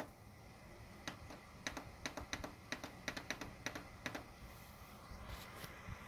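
Push buttons on a Dr Infrared heater's control panel clicking under a finger, about a dozen quick presses in the first four seconds as the heater's mode and setting are keyed in.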